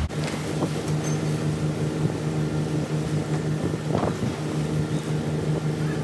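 A steady machine hum holding one constant pitch, with a few faint knocks partway through.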